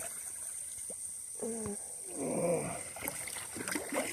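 Light splashing of pond water, with brief indistinct voices in the middle and a few small knocks near the end.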